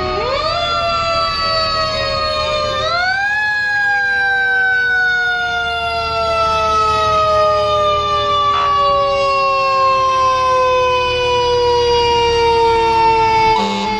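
Fire truck siren winding up in quick short rises, then falling slowly and steadily in pitch for about ten seconds as it winds down.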